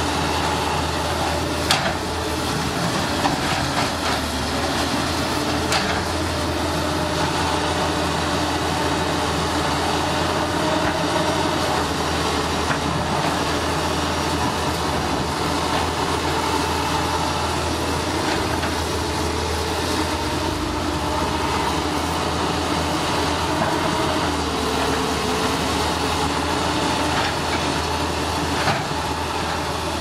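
Diesel engines of hydraulic tracked excavators running steadily under digging load, with a few sharp knocks of steel on earth and rock.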